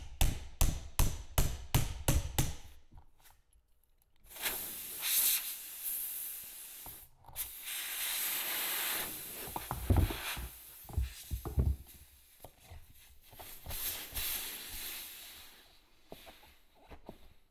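Quick hammer blows, about four a second for the first two seconds, driving a blade into an ATV tire's rubber sidewall. After a short pause comes a long hissing, rubbing sound as the sidewall is sliced open.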